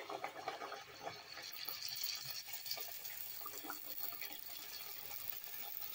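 Triangles of mahamri dough deep-frying in hot oil: a steady sizzle of oil bubbling around the dough.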